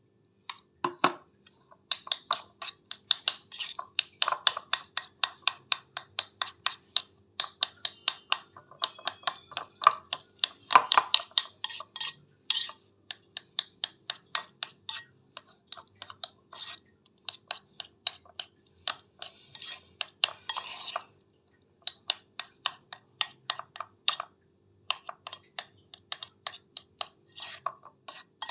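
A utensil clinking and scraping against a dish over and over, about three strikes a second with brief pauses, as food is mashed or stirred.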